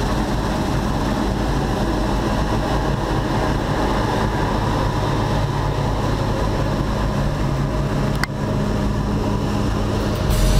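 Diesel engines of a New Holland CX820 combine harvester cutting wheat as it passes close by and a John Deere tractor standing beside it, running steadily with a constant low hum.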